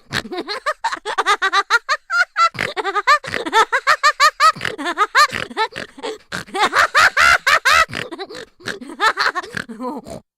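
Cartoon laughter sound effect: a high-pitched, sped-up voice giggling in quick repeated bursts, pausing briefly twice.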